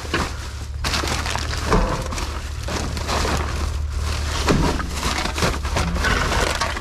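Junk being rummaged and shifted in a metal dumpster: irregular clattering and rustling with a few harder knocks, over a steady low hum.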